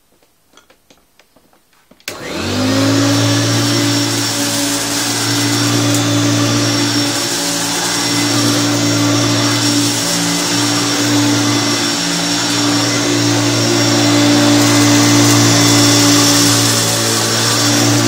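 Hoover Turbopower vacuum cleaner switched on about two seconds in, after a few faint clicks: its motor spins up over about a second, then runs steadily with a low hum and a high whine.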